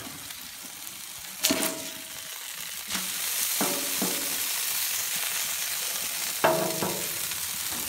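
Beef burger patty sizzling on a flat-top griddle, its sizzle growing louder about three seconds in as it is flipped onto the hot steel. A metal spatula scrapes and clinks against the griddle a few times.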